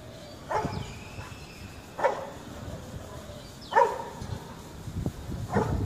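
A dog barking: four single barks spaced about one and a half to two seconds apart.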